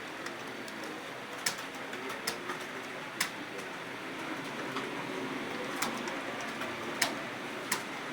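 Computer keyboard keys being typed on at an uneven pace: scattered sharp clicks, a handful louder than the rest, over steady room hum.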